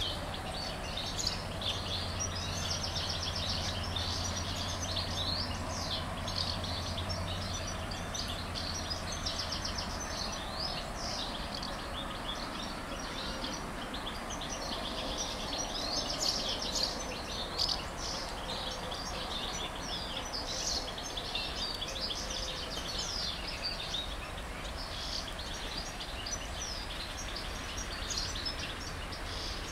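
Many songbirds chirping and singing continuously in the trees, with a steady low hum underneath that fades out about ten seconds in.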